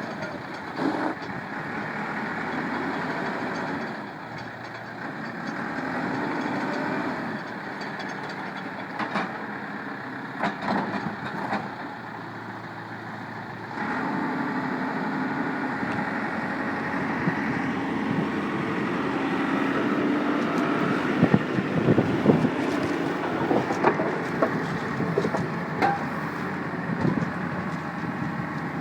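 JCB 3CX backhoe loader's turbo diesel engine running steadily. The engine note drops briefly and then steps up about halfway through. Scattered knocks and clanks come throughout, growing more frequent near the end.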